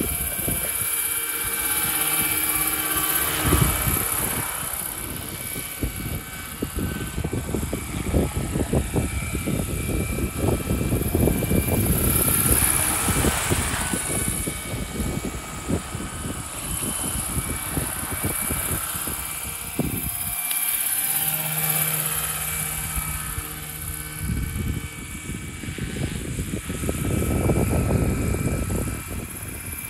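Radio-controlled Roban Super Scale Bell 412 model helicopter flying low: the four-blade main rotor chopping with a steady whine from the drive and tail rotor, the sound swelling and fading as it moves about.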